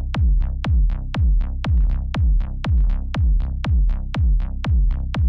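Background electronic dance music with a steady, fast drum-machine beat, about four beats a second over a heavy low pulse.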